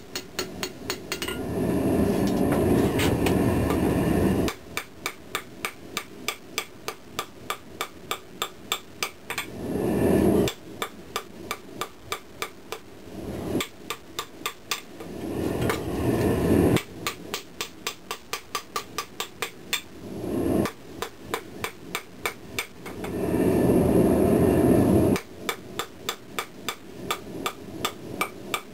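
Quick, regular strikes on a hot steel blade lying on an anvil, about three a second, from a ball-peen hammer and a wooden stick used to straighten a curve in the blade without mushrooming its thin edge. The strikes are broken several times by a loud rushing roar lasting one to four seconds.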